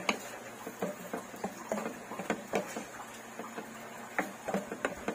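Wooden spatula knocking and scraping against a non-stick wok while squid rings are stir-fried, in irregular clacks a few times a second over a faint steady sizzle.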